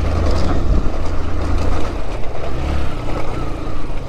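Yamaha FZ-S V3's single-cylinder engine running steadily as the motorcycle rides along a gravel mountain track, with a heavy low rumble throughout.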